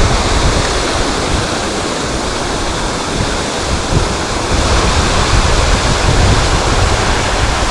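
Wind buffeting the microphone: a steady rushing hiss with irregular low rumbling gusts.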